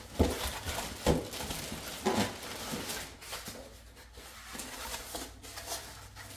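Packaging being handled: a cardboard-and-foam packing insert is lifted out of a box, with three soft knocks in the first couple of seconds, and a clear plastic bag rustles and crinkles throughout.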